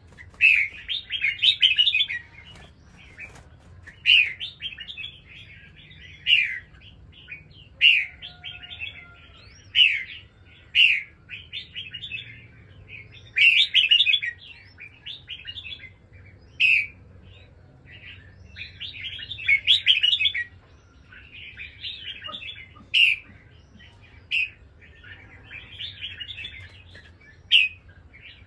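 Red-whiskered bulbuls singing: short, loud song phrases repeated every second or two, with a few longer warbling runs.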